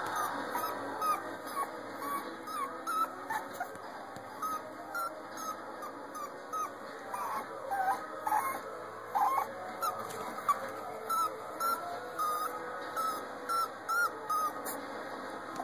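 A small puppy whining in short, high-pitched whimpers, one after another about once or twice a second.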